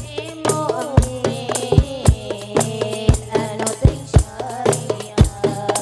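Hadroh music: a woman sings a devotional melody over rebana frame drums and hand percussion. Heavy drum strokes fall about once a second, with lighter strikes between.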